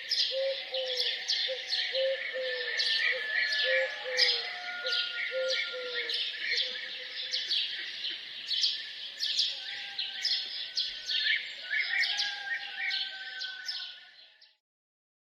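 Many songbirds chirping and singing at once in a busy chorus, with a lower call repeated steadily through the first half. The chorus fades out near the end.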